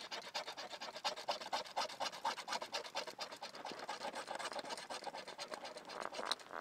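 Scratch-off game card being scratched: quick, repeated short scraping strokes across the card's coating.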